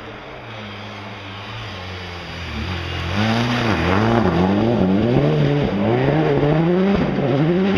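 Rally car engine approaching and growing louder, then revving hard from about three seconds in, its pitch repeatedly climbing and dropping.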